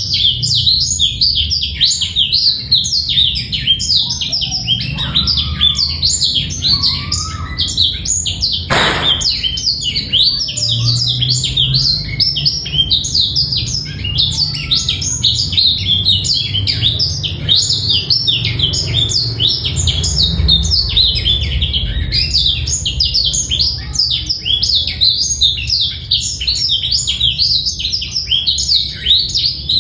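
Male blackthroat (black-throated canary) singing without a break, a fast jumble of high twittering and chirping notes. There is a brief hiss about nine seconds in.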